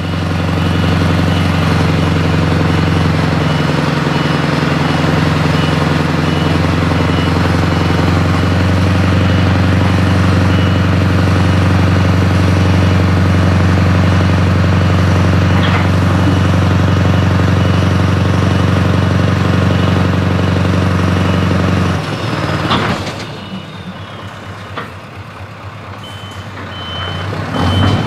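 Scania R500 V8 diesel engine running steadily and loudly through an open exhaust pipe while a reversing alarm beeps. About 22 seconds in the engine falls back to a quiet idle with a sharp click. The beeping returns and the engine picks up again near the end.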